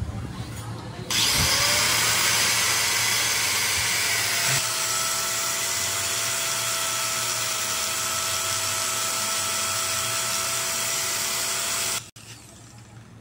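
A handheld power tool runs continuously for about eleven seconds, with a loud hissing high-pitched noise. It starts suddenly about a second in, a steady whine joins midway, and it cuts off abruptly near the end.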